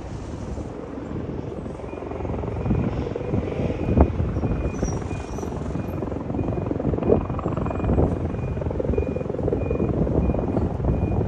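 Rescue helicopter hovering at a distance, its rotor and engine noise steady and low-pitched, with a sharp knock about four seconds in.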